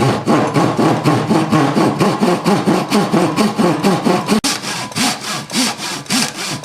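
Pull saw cutting through a wooden block by hand, in fast, even back-and-forth strokes with a brief break about four seconds in.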